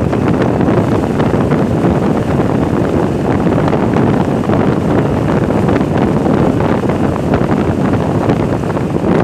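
Steady, loud wind rush on the microphone of a camera riding on a moving Vespa 300 scooter, with the scooter's running and road noise mixed in.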